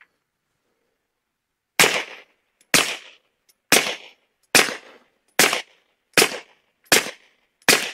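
Suppressed Taurus G3 Tactical 9mm pistol fired through a Rugged Obsidian 45 suppressor with a 9mm end cap, loaded with 124-grain Berry's reloads: eight shots in slow, steady fire, about one a second, beginning about two seconds in. Each shot is a sharp crack with a short tail.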